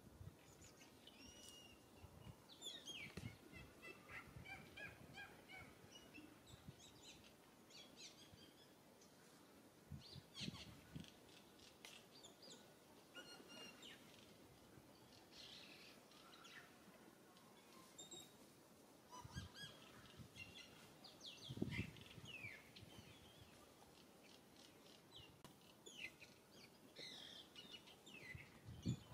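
Faint birds chirping and calling in the trees, short scattered calls throughout, with a few low thumps, the loudest a little past the middle.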